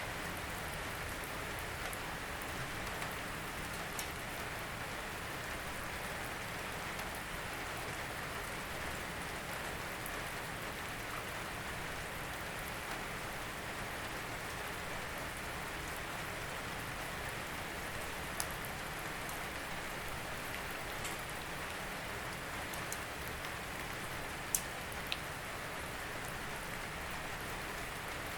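Steady rain falling, an even hiss with occasional sharp drip ticks, a few of them standing out in the second half.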